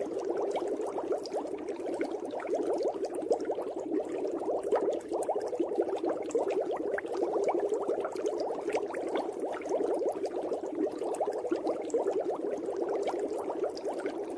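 Water bubbling steadily, a dense crackle of many small bubbles without pause.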